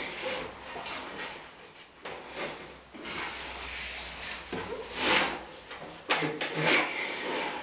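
Scraping, rubbing and knocking of wood and loose parts as cables and modules are handled inside a stripped wooden organ cabinet. The loudest scrape comes about five seconds in, followed by a few sharp knocks.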